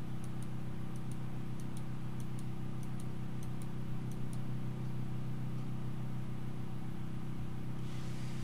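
Steady low electrical hum, with faint ticks from a computer mouse, often in pairs, for about the first four seconds.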